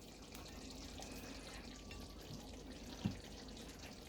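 Faint steady running water, like a kitchen tap, with a single soft knock about three seconds in.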